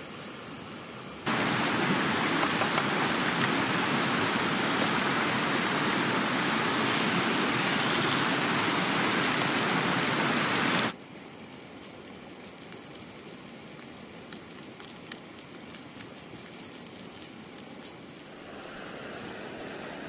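Trout, diced potatoes and an egg sizzling loudly in oil in a frying pan on a camp stove. The sizzle cuts in sharply about a second in and drops suddenly to a softer crackling about halfway through. Near the end a stream's steady rush takes over.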